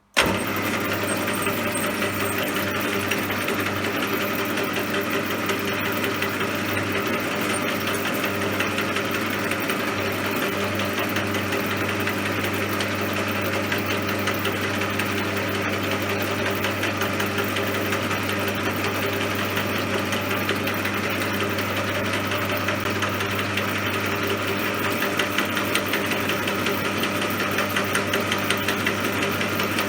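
CJM360 benchtop metal lathe running steadily, its motor and gear drive giving an even mechanical drone that sets in abruptly.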